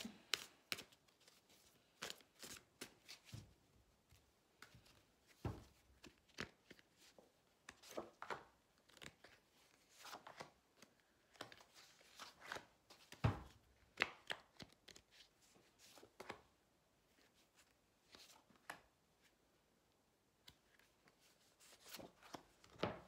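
Quiet handling of a tarot deck: cards shuffled with irregular rustling clicks, and a few dull knocks as cards are set down on the wooden table, the loudest about five and a half and thirteen seconds in.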